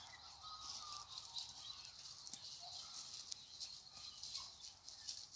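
Faint outdoor ambience: a steady high hiss with light crackling of footsteps on gravel and bark litter, and a few short, faint bird chirps.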